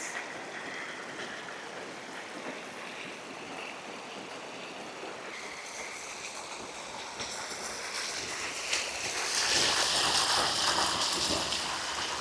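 Creek water rushing and splashing over rocks, an even rush that grows louder about seven seconds in and stays loud.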